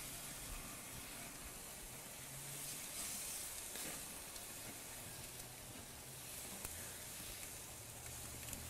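Split whole chickens sizzling faintly on the grates of a Weber gas grill, a steady hiss of fat and juices, as they are turned over with a pigtail food flipper, with a few light clicks.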